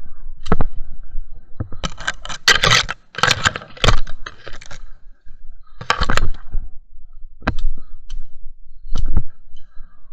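Branches and leaves rustling and snapping close to the microphone as someone pushes through brush, in irregular bursts that are densest from about two to five seconds in, with single sharp cracks later on.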